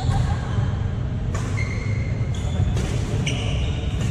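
Badminton rally on a hardwood gym floor: a few sharp racket hits on the shuttlecock and short high sneaker squeaks, over a steady low rumble.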